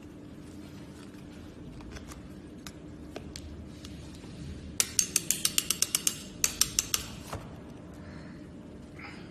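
Thin folding laptop stand being folded and handled, its stainless steel panels clicking. Around halfway through comes a quick run of about ten sharp clicks, then a shorter run of a few more.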